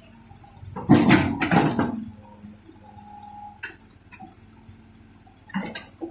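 A Caterpillar 307C excavator dumps its first bucket of soil into a dump truck's steel bed, with a heavy crash of dirt and stones about a second in. After that there is quieter machine noise with a brief whine, and a short knock near the end.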